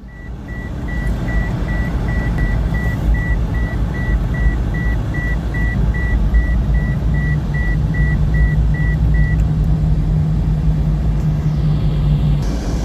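Inside a car, a steady low rumble of the vehicle running, with a dashboard warning chime beeping about three times a second for roughly nine seconds before it stops.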